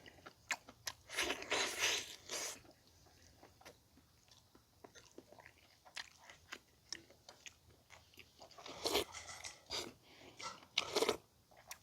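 Close-up chewing and biting of boiled pig's trotter: irregular clicks and short bursts of mouth noise, busiest near the start and again near the end.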